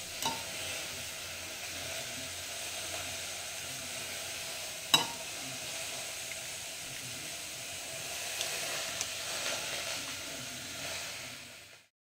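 Steady sizzling hiss from a hot, steaming pot on the stove, with one sharp click about five seconds in and a few faint ticks later; it fades out near the end.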